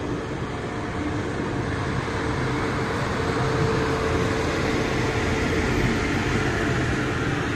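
Electric locomotive and passenger coaches of an Indian express train rolling past at low speed: a continuous rumble of wheels on rail, growing a little louder midway. A steady hum runs under it and fades out about five seconds in.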